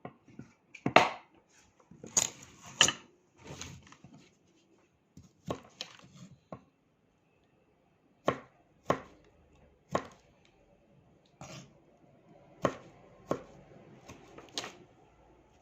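Knife chopping tomatoes on a cutting board: a dozen or so sharp knocks at uneven intervals, with a short pause about halfway through.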